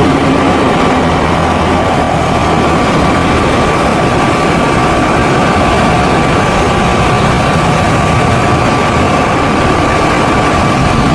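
C-130 Hercules transport's four turboprop engines running, a loud steady rumble with a steady whine on top.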